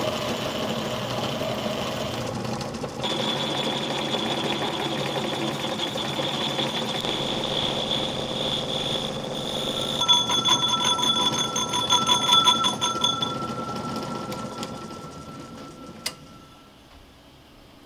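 Homemade Gingery metal lathe running while a cutting tool takes a shallow cut across the cast faceplate: a steady machine whine with high ringing tones. About ten seconds in the ringing turns into a rapid, even pulsing; the sound then dies away near the end, with a single click.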